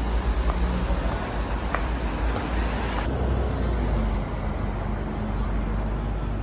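Road traffic noise: a steady low rumble with a few faint ticks.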